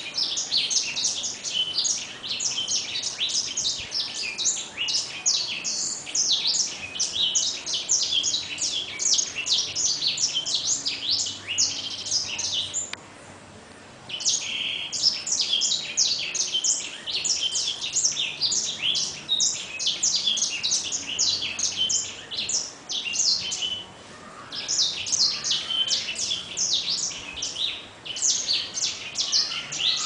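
Caged songbird singing a fast, continuous stream of high chirping notes, breaking off for about a second about halfway through and briefly again later.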